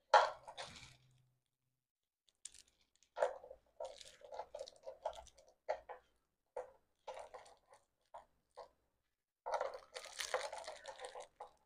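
A ring light's centre mount being handled and fitted by hand: irregular clicks and rattles, with a sharp knock at the start and a denser burst of rattling near the end.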